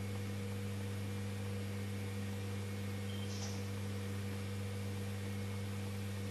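A steady low electrical hum that does not change, with one brief high sound about three seconds in.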